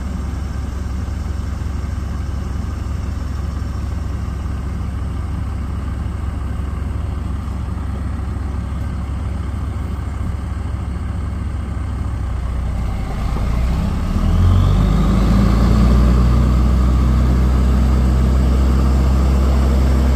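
Loaded log truck's diesel engine idling steadily, then revving louder about 14 seconds in with a rising whine as the truck pulls away.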